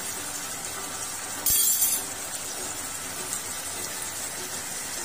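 Steady hiss of a pot of beef adobo simmering on a gas stove. About one and a half seconds in comes a short, loud metallic clatter of a kitchen utensil.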